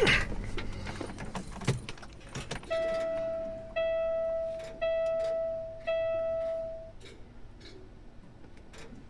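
A few clicks and knocks, then a Peterbilt 386 truck's dashboard warning chime sounds four times, a steady tone about a second long each time, as the ignition is switched on.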